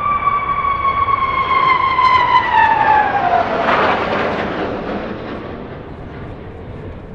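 Military aircraft passing overhead: a high engine whine slides down in pitch as it passes, with the loudest rush of engine noise about four seconds in, then fading away.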